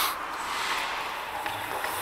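Ice hockey rink noise as heard from a referee's helmet camera: a steady scraping hiss of skates on the ice, with a short brushing sound at the start.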